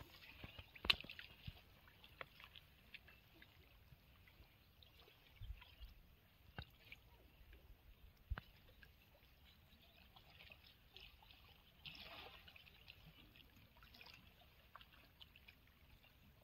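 Near silence: faint outdoor quiet broken by a few scattered soft clicks and small knocks.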